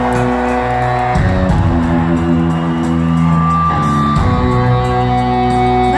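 Live rock band playing loud through a concert PA, heard from within the crowd: electric guitars holding sustained chords that change a few times.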